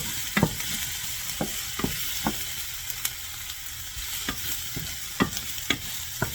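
Diced onion, zucchini and eggplant sizzling in olive oil in a frying pan, with a steady hiss. A stirring utensil knocks and scrapes against the pan a dozen or so times at an uneven pace.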